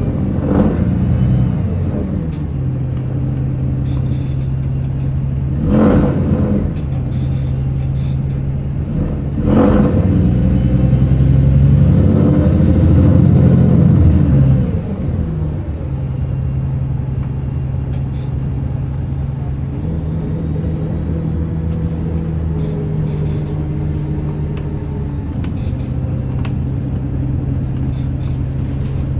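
VDL DB300 double-decker bus running, heard on board: a steady, grumbling engine drone. The drone gets louder for a few seconds in the middle, then settles back, with a few sharp knocks or rattles about six and nine seconds in.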